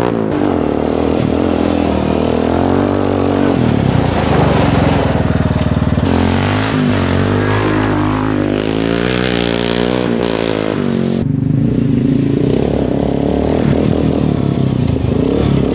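Yamaha Raptor 350 quad's single-cylinder four-stroke engine revving hard, its pitch rising and falling again and again as the rider accelerates and lets off along a dirt track.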